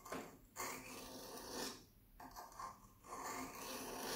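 Steel knife blade being stroked by hand across a sharpening whetstone: several rasping strokes, each about a second long, with short pauses between. It is the grain of the stone resisting the steel as metal is ground off to restore the edge.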